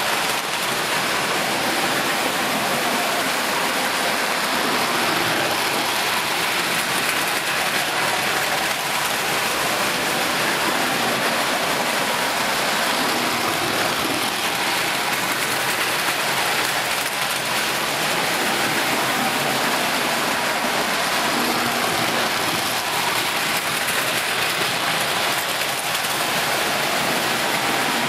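Several toy electric trains running on three-rail metal track, their motors and wheels making a steady, dense whirring noise.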